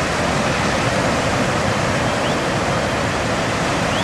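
Ocean surf breaking and washing up the beach: a steady, unbroken rushing noise.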